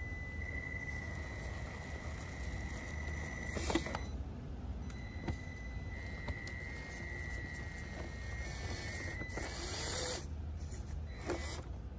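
Traxxas TRX-4M micro crawler's small electric motor and gears whining steadily as it crawls slowly over rocks, with a few sharp knocks from the tires and chassis hitting stone. The whine stops near the end, followed by a brief hiss and another knock.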